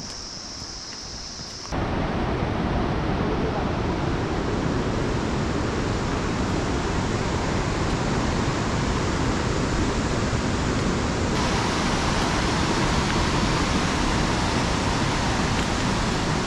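Loud, steady roar of a fast white-water river, starting abruptly about two seconds in. Before it, a quieter steady high-pitched buzz.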